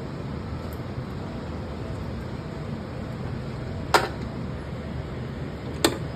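A steady fan-like hum with two sharp clicks about two seconds apart, the first about four seconds in and the louder of the two.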